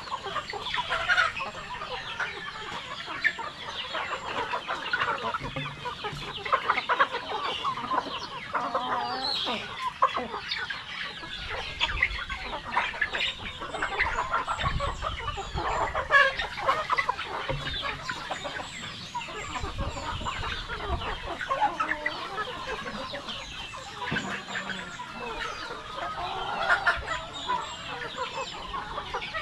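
A flock of Rhode Island Red chickens clucking continuously, many birds calling over one another. A low rumble comes in twice around the middle.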